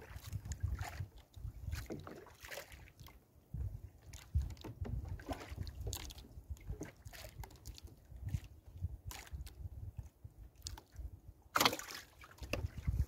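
Water sloshing and lapping around a small outrigger boat while a wet gill net is hauled in by hand, with scattered rustles and knocks of the net and fish against the hull. There is a louder knock near the end.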